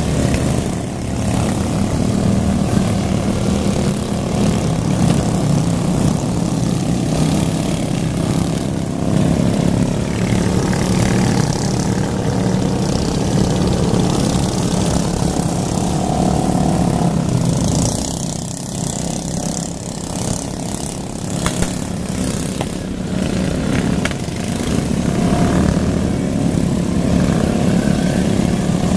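Racing lawn mower engines running steadily. The drone dips for a few seconds about two-thirds of the way through, then comes back up.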